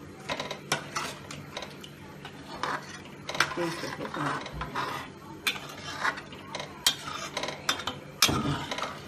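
Metal ladle scraping and clinking against a stainless steel pot while stirring a thick curry gravy, in irregular knocks and short scrapes.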